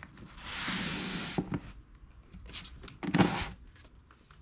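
Paperback manga volumes being slid along a shelf of an IKEA Billy bookshelf and pushed into place. A scraping slide of books lasts just under a second, followed by two light knocks, and a second shuffle with a knock comes near three seconds in.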